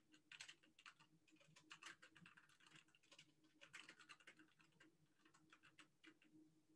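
Faint computer keyboard typing: keystrokes clicking in irregular quick runs with short pauses between them.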